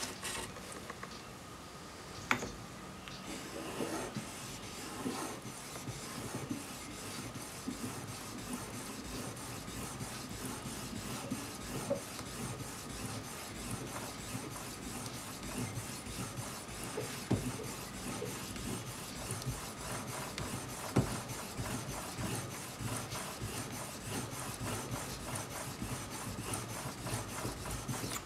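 Steel cutter of a Stanley 71 router plane being honed by hand on a sharpening stone: a steady gritty scraping of steel rubbed back and forth across the stone, with a sharper click about two seconds in and another about twenty-one seconds in.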